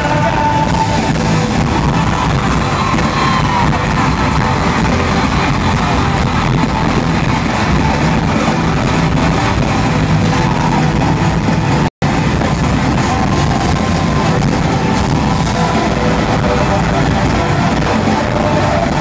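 Loud live pop concert music with crowd voices mixed in, picked up from the seats of an arena. The sound cuts out completely for an instant about twelve seconds in.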